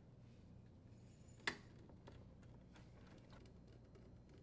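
Near silence with a few faint clicks of a screwdriver and the plastic control board bracket being handled as the bracket is screwed back to the dishwasher frame; one sharper click about a second and a half in.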